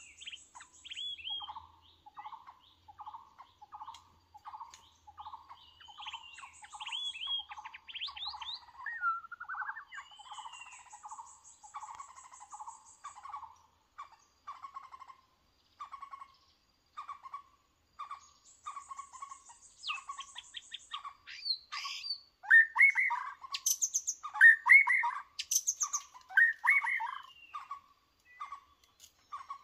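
White-rumped shamas calling: a steady run of short repeated call notes, roughly one or two a second, mixed with brief high rattles and whistled phrases. Louder, fuller song phrases come in about two-thirds of the way through.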